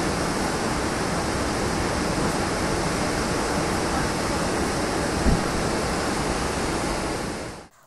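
Rushing water: a steady, unbroken noise of heavy flow, with one short low thump about five seconds in. It fades out near the end.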